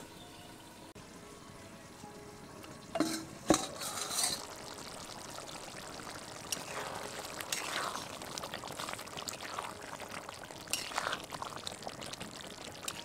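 Chicken gravy simmering in an aluminium kadai, bubbling and sizzling with small crackles. A couple of sharp clinks come about three seconds in, before the bubbling gets louder.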